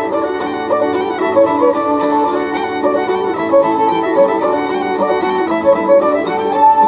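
Background music: a fiddle tune playing steadily.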